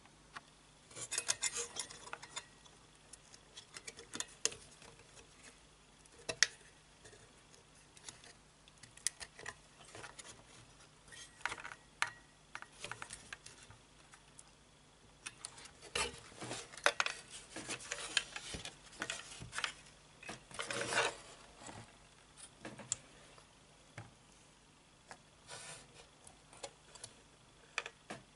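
Hands handling a computer motherboard and its CPU cooler: scattered light clicks, taps and rubbing in short clusters, busiest just after the start and again past the middle.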